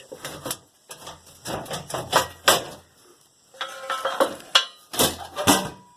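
Loose metal hand tools clinking and clattering against each other as they are rummaged through and moved about, in several bursts of sharp knocks and rattles.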